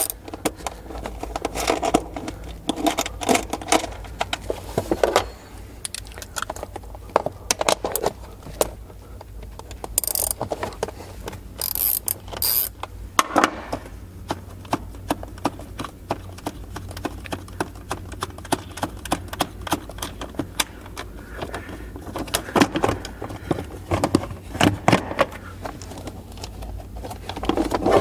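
Hand ratchet clicking as nuts are undone on a plastic cover, followed by knocks, rattles and scrapes as the plastic cover is handled and worked loose.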